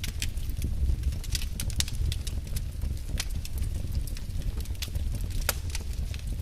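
Wood fire crackling: irregular sharp pops and snaps over a steady low rumble, with one louder pop about five and a half seconds in.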